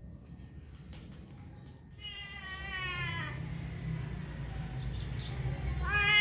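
Domestic cat meowing twice: one drawn-out meow about two seconds in that falls slightly in pitch, then a second meow near the end that rises and falls.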